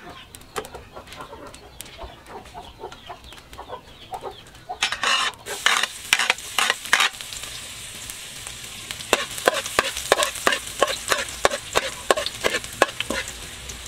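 Chopped ingredients hit hot oil in a steel wok and start sizzling about five seconds in, with a steady hiss after the first loud burst. From about nine seconds in, a metal spatula scrapes and clinks against the wok as the food is stirred.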